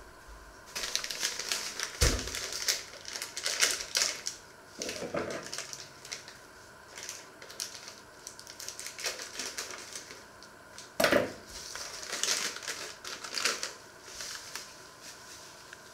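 Plastic food packet crinkling as it is handled, snipped open with scissors and shaken out, with a few sharp knocks, the loudest about two seconds in and about eleven seconds in.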